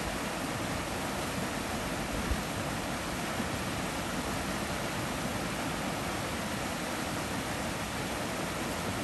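Shallow stream rapids, the water rushing and splashing over rocks in a steady, even rush.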